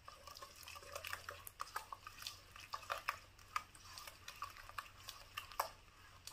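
Fingers mixing a thick, wet marinade paste in a stainless steel pot: irregular soft squelches with light clicks and scrapes against the metal, several a second.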